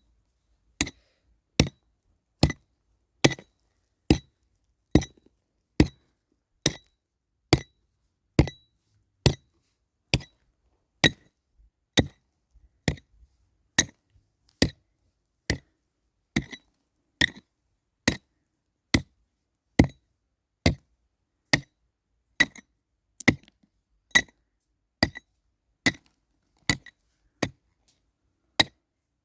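Steady hammering: sharp strikes that each ring briefly like metal, a little more than one a second and very even in pace, typical of nails being driven into wooden planks.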